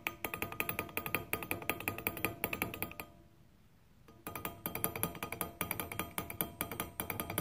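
Metal rapping tool struck rapidly from side to side against a steel draw screw in a pattern bedded in greensand, rapping the pattern loose before it is drawn: fast, ringing metallic taps, several a second, in two runs with a pause of about a second in the middle.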